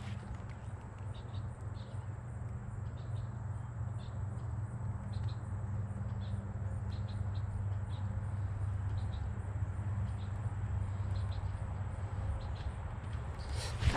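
Outdoor pond ambience: short, scattered high chirps over a steady low hum, with a thin steady high whine.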